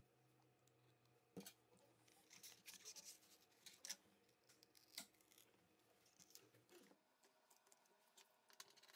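Near silence with a few faint scrapes and clicks, mostly in the first half: a thin plastic opening card being slid under the edge of a smartphone's glass back through the adhesive.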